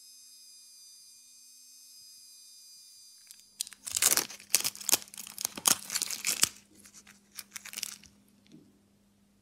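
A rotary polishing tool runs with a faint, steady whine and stops about three seconds in. Then clear plastic masking film is pulled and crumpled off a stainless steel watch bracelet, loud crinkling and tearing for about four seconds.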